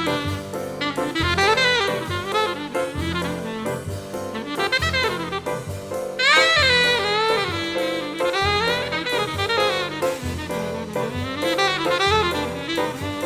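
Jazz quartet recording: a saxophone plays a bending, sliding melody over a drum kit, with a loud high phrase coming in about six seconds in.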